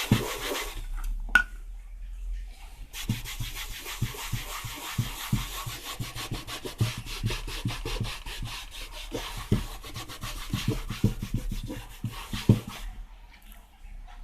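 Rapid back-and-forth scrubbing strokes on the radio cassette recorder's cabinet, working in degreaser to strip paint. The strokes pause briefly about two seconds in and die away near the end.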